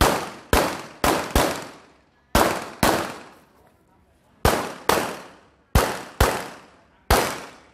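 Pistol fire from an IPSC Production-division handgun: eleven sharp shots, mostly in pairs about half a second apart with pauses of about a second between pairs, each shot trailing off in a short echo.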